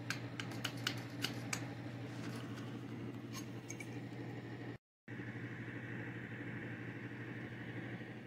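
Light, quick clicks about three a second, from a push rod tapping a baffle down inside an air rifle's moderator shroud, fading out after about a second and a half. A steady low hum runs underneath throughout.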